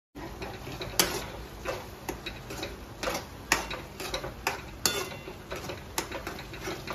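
A metal spatula stirring corn kernels in an aluminium kadai on a gas burner. It scrapes and clinks against the pan in sharp, irregular ticks, roughly one or two a second.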